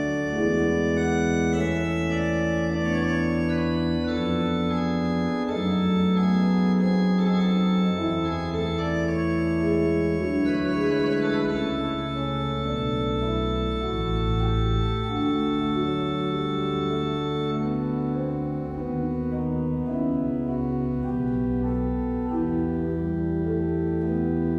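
Church pipe organ playing slow, sustained chords over held bass notes. The brightest upper tones drop out about two-thirds of the way through.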